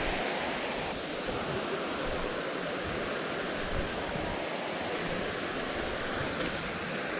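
Steady rushing of a waterfall, an even hiss of falling water.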